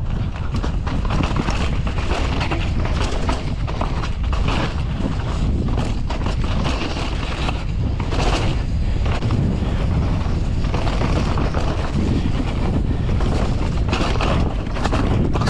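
Mountain bike descending a rough trail: steady wind rush over the microphone with a low rumble from the tyres on dirt and rocks, and a constant clatter of knocks and rattles from the bike.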